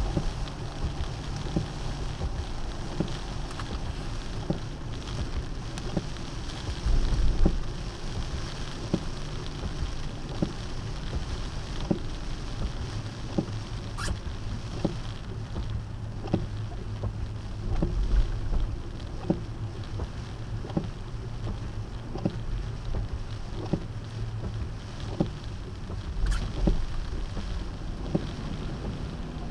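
Car driving on a rain-soaked road, heard through a dash cam inside the cabin: steady tyre and road noise with a low rumble and rain pattering. Soft short knocks repeat about every second and a half.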